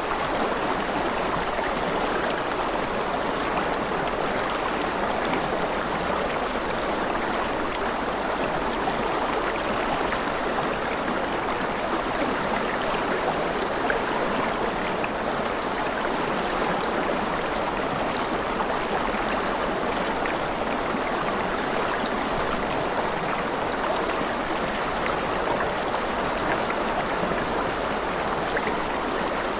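River water rushing steadily over rocks, an even unbroken wash of noise.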